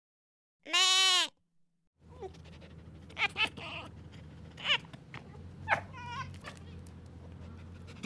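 A goat gives one bleat about a second in, its pitch rising then falling. After that a red fox gives about five short, sharp yelps over a low steady hum.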